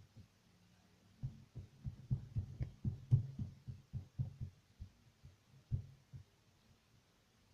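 A series of soft, irregular low thumps, several a second, starting about a second in and dying away after about six seconds.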